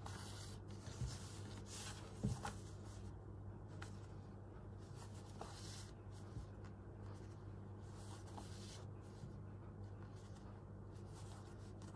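Hand stitching: needle and thread drawn through backed fabric, making faint, irregular scratchy swishes with a couple of light taps.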